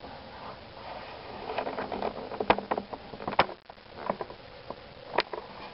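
Handling noise: rustling and clatter, with three sharp clicks, the loudest about two and a half, three and a half and five seconds in.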